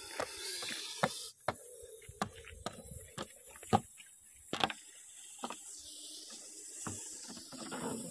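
Russell's viper hissing in breathy bursts as it is let out of a jar, a sign the snake is still agitated. Irregular sharp clicks and knocks from the jar being handled run through it.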